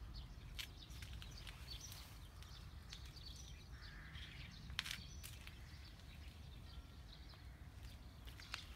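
Faint outdoor ambience: a steady low rumble, with scattered small clicks and taps and a few faint, high bird chirps.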